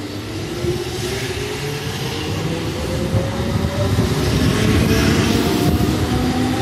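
Keihan 2600 series electric train pulling out of the station. Its motor whine climbs steadily in pitch and grows louder as it picks up speed, over the low rumble of the wheels.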